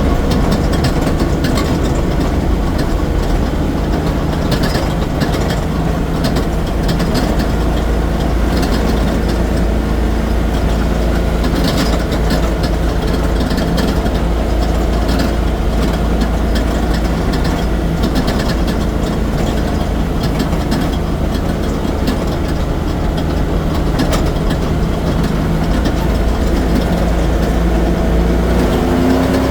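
A vehicle engine running steadily with a rattle, heard as scattered clicks over the engine noise. The rattle's cause is unknown to the owner.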